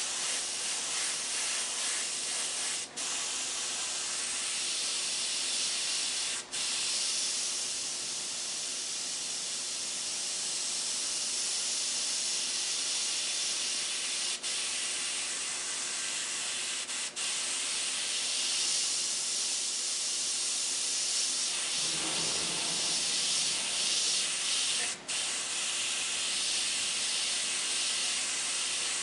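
Iwata gravity-feed airbrush hissing steadily as compressed air sprays paint, the hiss breaking off for a moment about five times.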